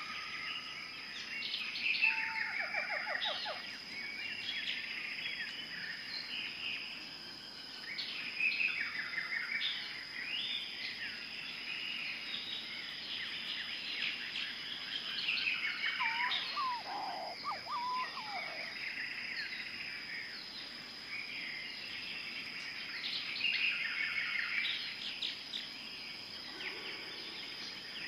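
Rainforest ambience: many birds chirping, trilling and whistling over one another, with a steady high insect whine underneath.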